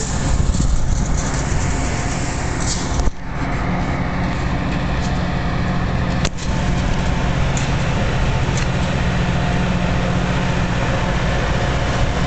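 EMD F40PH-2 diesel locomotive running steadily while standing at the platform, a constant low drone with a hum of engine harmonics. The sound drops out for an instant twice, about three and six seconds in.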